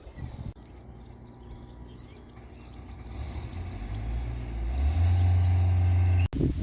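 A motor vehicle's engine with a steady low hum, growing louder through the second half as it draws nearer, then cut off abruptly near the end.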